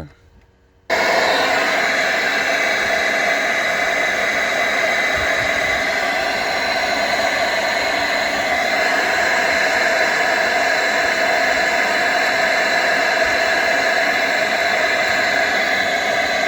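Steady hiss of test noise played loud through a car sound system's speakers for a frequency-response measurement. It cuts in abruptly about a second in and holds unchanged.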